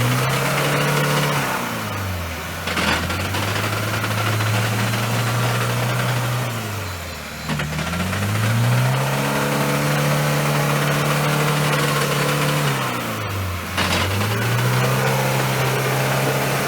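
An off-road vehicle's engine revving hard through deep mud. Three times it climbs, holds high for several seconds and drops back.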